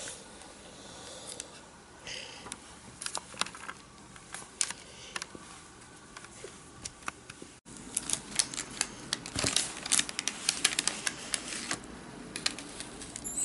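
Light clicks and taps of plastic cookie cutters and cut cookie dough being handled on parchment paper. They are scattered at first and come thicker after a break about halfway.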